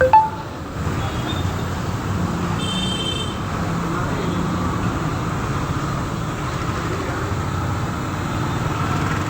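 Steady low background rumble, with a sharp clink right at the start and a brief high metallic ring about three seconds in.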